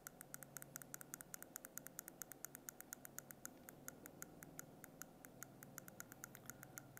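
Faint, rapid, evenly paced clicking of a handheld presentation remote's button, about six to seven clicks a second, as slides are skipped through quickly.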